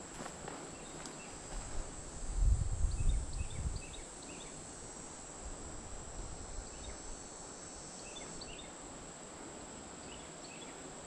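Woodland ambience: a steady high-pitched insect drone with scattered clusters of short high chirps, and a brief low rumble on the microphone about two to four seconds in.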